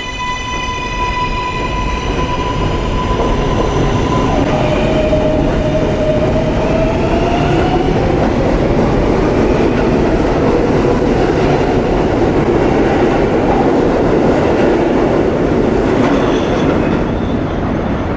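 R143 subway train's AC traction motors whining as it accelerates. The whine holds one steady pitch for about four seconds, drops to a lower tone and climbs slowly again, then fades under the steady rumble and clatter of wheels on rail.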